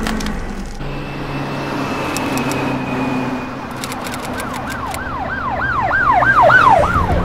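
Siren sound effect over a low rumble: from about four seconds in, a fast siren sweeps up and down about three times a second, growing louder near the end.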